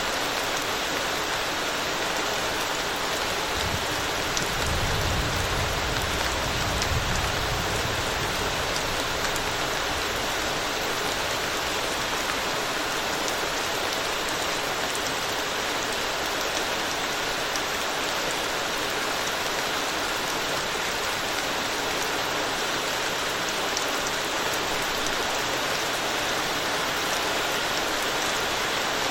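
Steady rain falling on a road, an even hiss of drops with scattered sharper drop ticks. A low rumble swells and fades between about four and ten seconds in.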